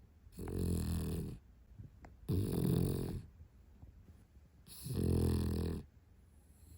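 A sleeping Spitz dog snoring: three snores, each about a second long, about two to two and a half seconds apart.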